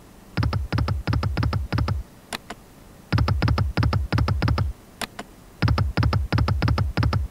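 Reel-spin sound effect of the EGT Egypt Sky online slot game: three spins in a row, each a rapid run of clicks lasting about a second and a half as the reels spin and stop. None of the three spins pays out.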